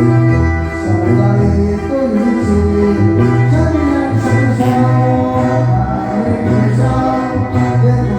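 Live tuba band music: a tuba plays a repeating bass line of held low notes under brass melody instruments.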